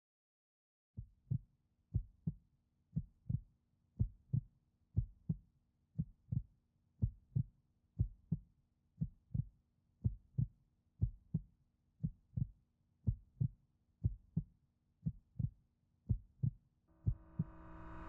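Heartbeat sound effect: paired low thumps about once a second, starting about a second in, over a faint steady hum. Near the end a swell of noise rises in loudness.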